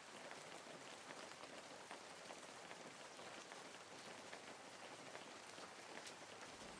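Faint, steady rain: a soft hiss with many small drop ticks scattered through it.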